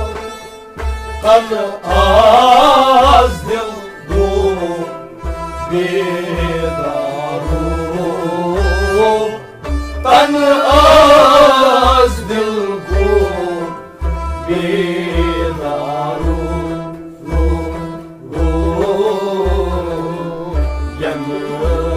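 A male voice sings a Kashmiri folk song to harmonium and bowed sarangi, over a steady low drum beat of about two strokes a second. The voice swells loudest about two seconds in and again around ten seconds.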